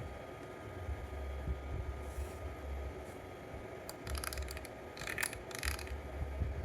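Two short spells of rapid small mechanical clicking and rattling, over a steady low hum.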